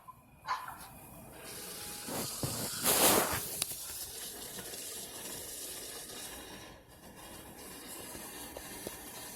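Air and water hissing and sputtering out of a dry-pipe sprinkler system's test outlet as the system drains under its remaining air pressure. The rush builds about a second and a half in, is loudest in a burst around three seconds in, then settles into a steady hiss.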